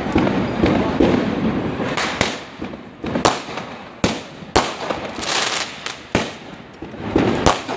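Fireworks going off: about a dozen sharp bangs at uneven intervals, with a noisy hiss between them.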